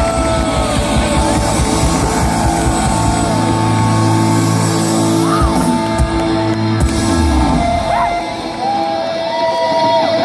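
Live rock band playing on a concert stage with singing, heard loud from within the crowd. Low held notes sound through the middle and drop out about three quarters of the way through.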